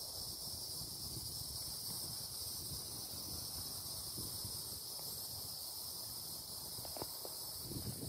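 Steady chorus of crickets and cicadas, an unbroken high-pitched drone in several layered pitches, over a low rumble with a few faint clicks near the end.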